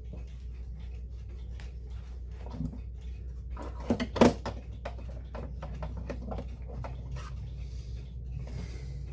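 Backboard of a wall clock case being handled and set into place: scattered light clicks and taps, with a few sharp knocks close together about four seconds in. A steady low hum runs underneath.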